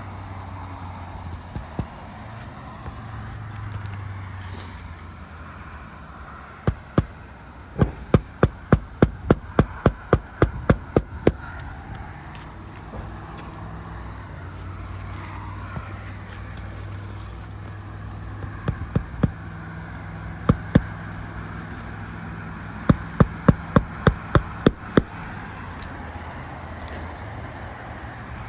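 Hammer driving roofing nails into an asphalt shingle: runs of quick, sharp strikes about three a second, the longest about a third of the way in, another near the end, with a few single strikes between.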